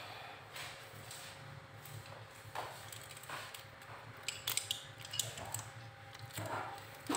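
Scattered light clicks and clinks of steel screwdrivers being handled, picked up and set down, with a few sharper ticks around the middle.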